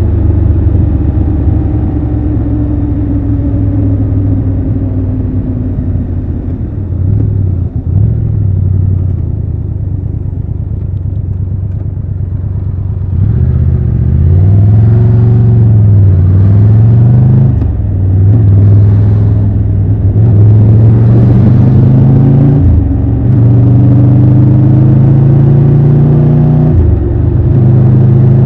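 Triumph Tiger 1200 Rally Pro's three-cylinder engine running at a steady cruise, then, about halfway through, pulling harder and louder with its pitch rising and dropping again several times as it accelerates through the gears.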